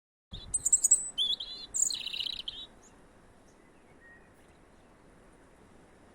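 A bird singing a burst of rapid, high chirps and warbling notes that stops after about two and a half seconds, leaving only faint background hiss.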